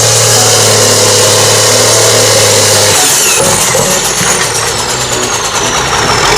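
A vehicle engine running. About three seconds in the sound changes, and a high whine slowly falls in pitch.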